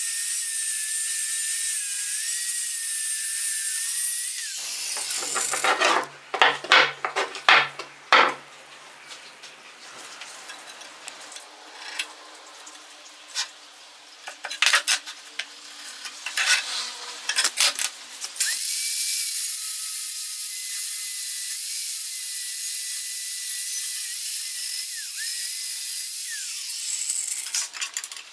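Metalworking shop noise. A steady high hiss with a faint wavering whistle gives way about four seconds in to a run of scraping strokes and sharp knocks. After that the steady hiss starts again.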